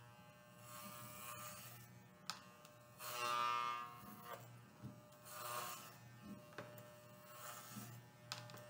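Corded electric hair clippers buzzing steadily while shaving a head, swelling louder a few times as they are pushed through the hair, with a few faint clicks.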